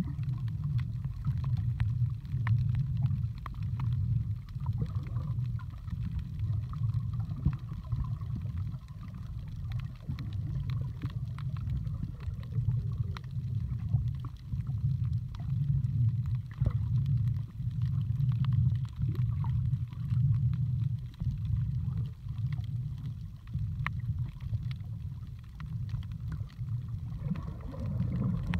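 Underwater audio from a snorkeling camera: a muffled low rumble of moving water that swells and fades every few seconds, with scattered faint clicks.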